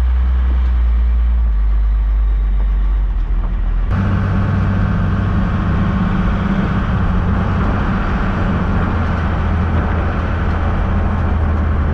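The first-gen Cummins 5.9 L 12-valve turbo diesel inline-six of a 1991 Dodge Ram 250 running steadily as the truck is driven. The note changes abruptly about four seconds in, from a deep low hum to a higher, fuller sound.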